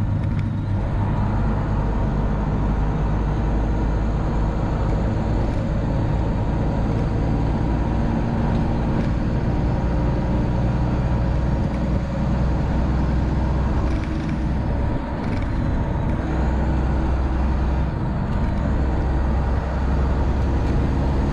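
Detroit Diesel Series 60 straight-six diesel of a Freightliner Classic XL running steadily at highway speed, heard from inside the cab along with road noise. The engine note dips briefly about two-thirds of the way through.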